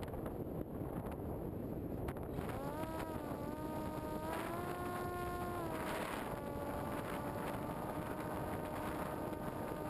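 Model airplane's motor heard from an onboard camera over wind rush: a buzzing whine comes in about two and a half seconds in and rises in pitch. It steps up again around four seconds, then drops and holds a steady, lower pitch from about six seconds.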